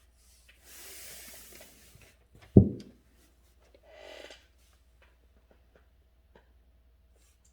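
Quiet handling sounds at a calligraphy desk: a soft hiss of rubbing, a single dull thump about two and a half seconds in, a short scratchy rustle, then faint small ticks.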